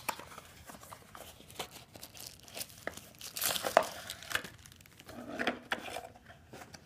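Plastic packaging crinkling and tearing as a small parts kit is opened, with scattered light clicks; the handling is busiest about three and a half seconds in and again around five seconds.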